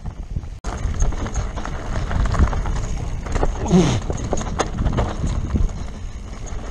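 Mountain bike descending a rough gravel and rock trail: tyres crunching over loose stones while the frame, chain and suspension rattle and knock over the bumps.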